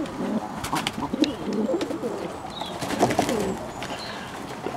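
Pigeons cooing, several low rolling coos overlapping one after another, with a few sharp clicks among them.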